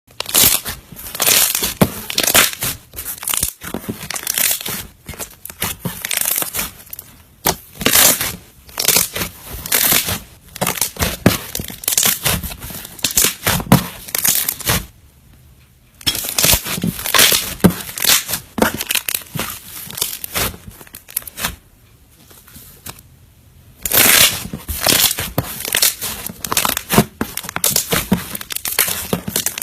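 Slime being squeezed, poked and stretched by hand, giving a dense run of crackling and popping clicks that stops briefly twice.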